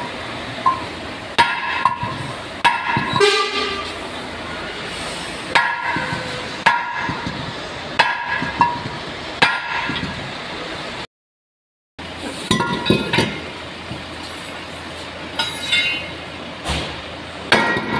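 Hammer blows on a steel truck brake disc and wheel hub, irregular strikes that each ring out metallically. The sound drops out completely for about a second midway.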